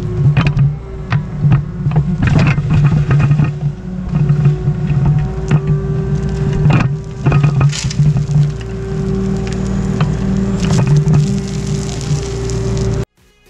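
Excavator engine running steadily while the machine digs, with many irregular knocks, clanks and crunches from the bucket working the ground. The sound cuts off suddenly near the end.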